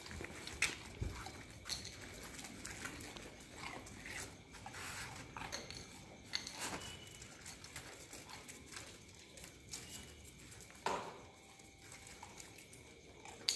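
Street dogs being hand-fed, with scattered short sharp sounds over a low background hiss; the sharpest come under a second in and again near the end.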